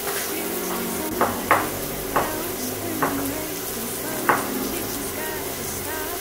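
Vegetables sizzling steadily in a frying pan, with a kitchen knife knocking on a wooden cutting board about five times, irregularly spaced, as chicken breast is sliced.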